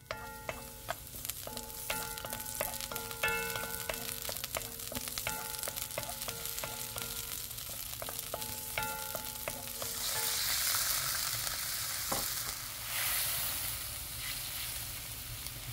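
Sliced garlic sizzling in oil in a wok, stirred with a wooden spatula, under a light melody of short notes. About ten seconds in, soup soy sauce hits the hot pan and the sizzle turns into a much louder, steady hiss.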